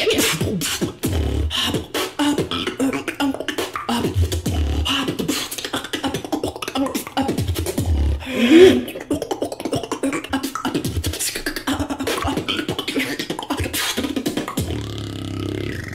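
Beatboxing: a fast, dense beat of mouth-made kick drums, snares and clicks. About eight and a half seconds in comes a short rising vocal sound, the loudest moment of the routine.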